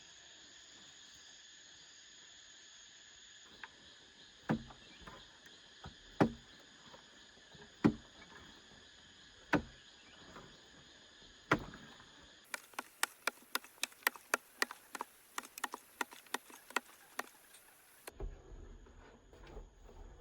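A hand tool striking hard five times, about every second and a half to two seconds, over a steady drone of insects. This is followed by a quicker run of lighter sharp taps.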